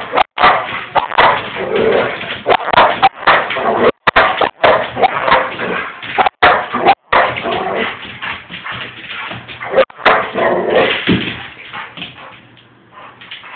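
A dog vocalising loudly and almost without pause, whining and barking, with people's voices mixed in; it dies down near the end.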